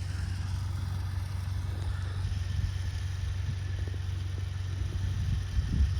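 Mitsubishi L200 pickup's engine running steadily at low revs, with a few louder low thumps near the end.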